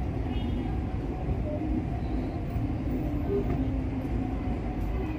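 Steady low rumble of city background noise.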